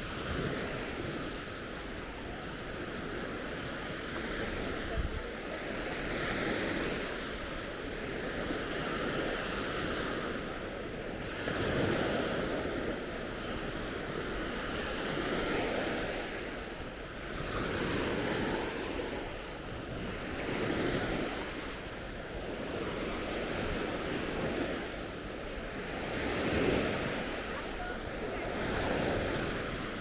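Baltic Sea waves breaking and washing onto a sandy beach, swelling every few seconds, with wind buffeting the microphone.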